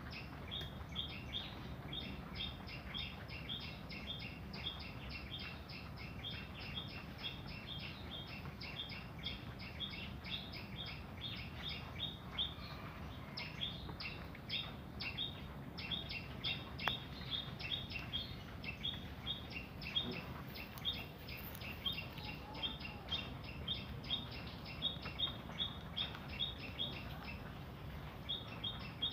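A small bird chirping over and over, about two to three short high chirps a second, over a low steady hum.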